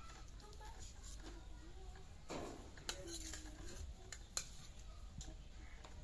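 A steel spoon clinking against steel plates as curry is ladled out and served, a few sharp clinks with a short scrape.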